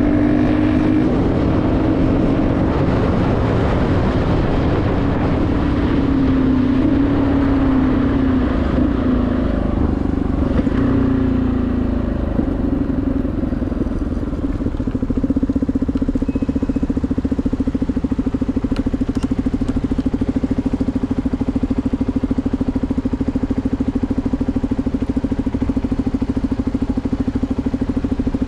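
CFMoto 250NK single-cylinder motorcycle with a full Akrapovič exhaust running on the road. Its engine note rises and falls through the first half, drops away about twelve to fourteen seconds in, then settles into a steady even note.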